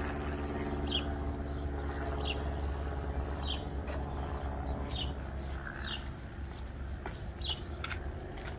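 A bird chirping over and over, one short high note falling in pitch about once a second, over a steady low hum.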